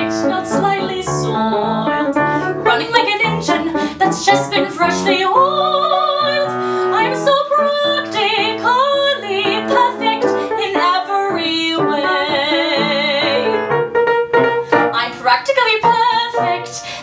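A woman singing a musical-theatre song with live piano accompaniment, holding several notes with vibrato.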